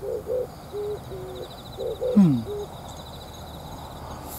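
A dove cooing in a repeated rhythmic phrase: two short notes, then longer, lower, even notes, over and over. About two seconds in, a single short, louder sound falls in pitch.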